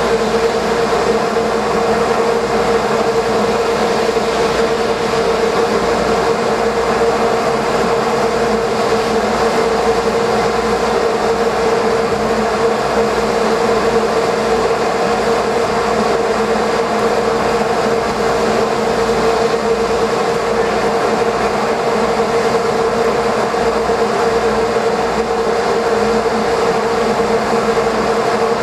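Steady drone of a sportfishing boat's engines, a constant hum that holds the same pitch throughout.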